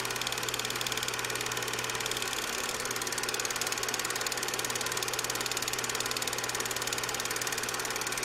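A steady, fast, even machine-like pulsing with a low hum underneath.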